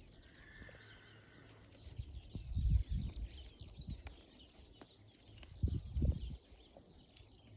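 Muffled hoofbeats of a horse trotting on a sand arena, in small clusters of dull thuds, with small birds chirping in the background.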